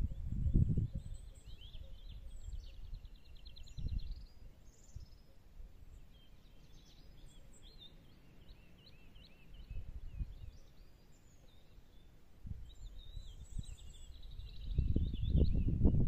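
Wind gusting on the microphone in low rumbles, loudest near the end, with small birds chirping and giving a quick trill high above it.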